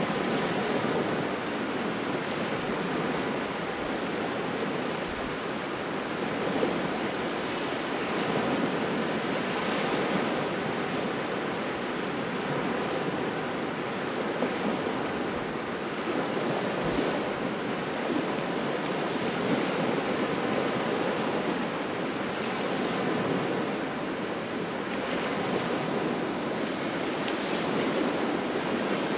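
Waves washing onto a shore in a cold, strong wind: a steady rush of water and wind that swells a little every few seconds.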